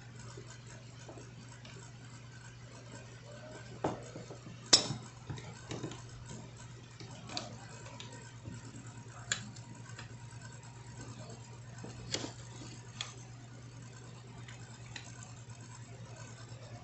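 Scattered sharp metallic clicks and knocks of hand tools being handled and set against the polisher's rotor while working a ball bearing off the shaft, about seven in all, the loudest about five seconds in, over a steady low hum.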